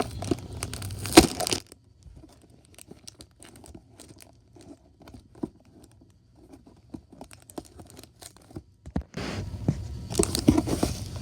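A small cardboard Lego set box being torn open: a loud ripping tear in the first second and a half, then scattered light clicks and crinkles, then steady rustling and crinkling of the plastic parts bags from about nine seconds in.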